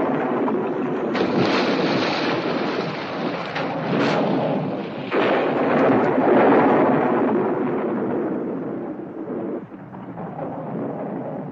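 Storm sound effects: heavy rain and wind with sudden crashes of thunder, loudest around the middle and easing off near the end.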